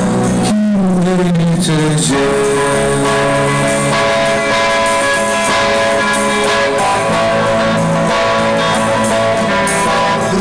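Rock band playing live through a PA, with electric guitar chords. A sung line bends in pitch in the first couple of seconds, then sustained notes are held.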